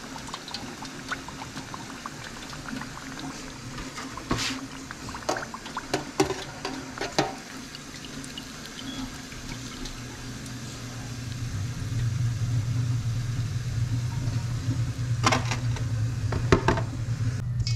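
Hot oil bubbling and sizzling in an electric deep fryer as fried bluegill are lifted out, with several sharp clicks of metal tongs. A low steady hum swells in about two-thirds of the way through and becomes the loudest sound.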